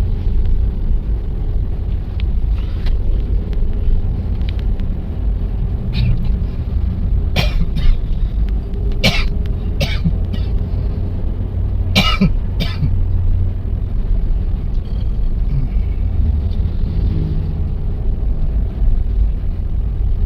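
Car driving, heard from inside the cabin: a steady low engine and road rumble, with a handful of short, sharp sounds clustered around the middle.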